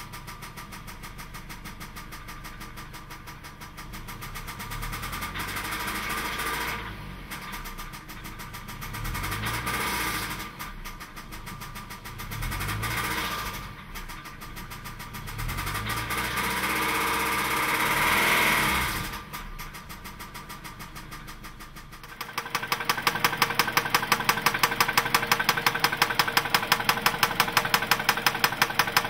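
2003 Mazda 6's 2.3-litre four-cylinder engine running with a rhythmic knock; it is revved up and back down several times. About two-thirds of the way through it settles to idle, and a louder, sharp, even knock of about five or six a second takes over.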